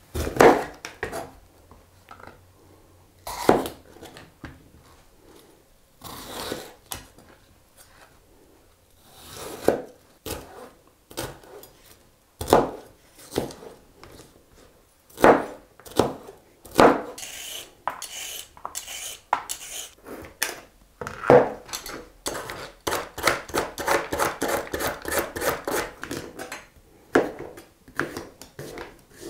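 Kitchen knife cutting bell pepper and other vegetables on a plastic cutting mat: single cuts a second or a few seconds apart, then a quick run of rapid chops about two-thirds of the way through.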